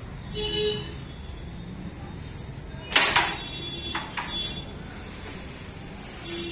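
Carrom striker flicked across the board: one sharp, loud clack as it strikes the carrom men about three seconds in, then a lighter click a second later.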